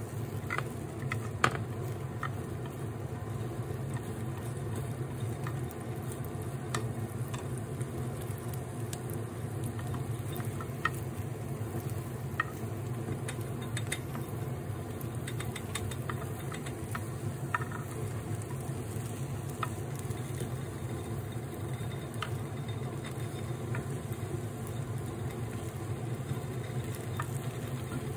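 Wooden chopsticks scraping and tapping in a rectangular tamagoyaki pan as the egg is stirred and rolled, with scattered sharp clicks and a faint sizzle of egg frying. Under it runs a steady low hum.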